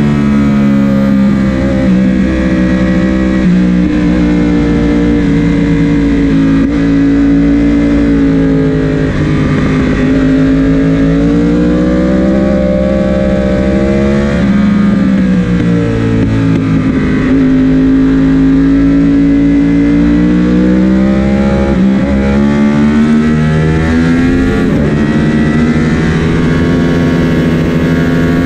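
Onboard sound of a sport motorcycle engine at track speed. Its note climbs under acceleration and drops back for gear changes and corners, several times over.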